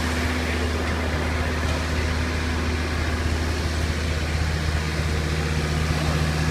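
Idling train engine beside the platform: a steady low hum, with a second low tone coming in about four and a half seconds in.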